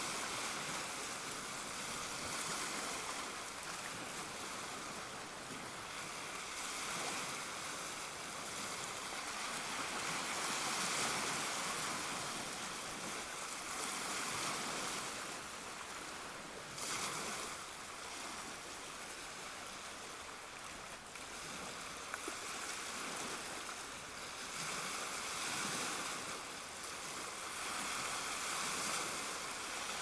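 Small waves of a calm sea lapping and washing against shoreline boulders: a steady hiss of water that swells and eases every few seconds.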